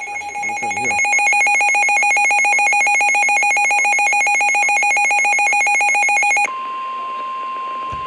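Midland NOAA weather radio sounding its warning alert, signalling a tornado warning: a rapidly warbling high-pitched alarm over a steady lower tone. About six and a half seconds in it cuts off suddenly and gives way to a single steady tone, the NOAA Weather Radio 1050 Hz warning alarm tone.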